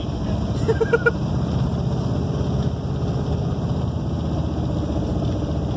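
Jeep Grand Cherokee driving, heard from inside the cabin: a steady low engine and road rumble, with the engine running on diesel fuel that was put in its tank.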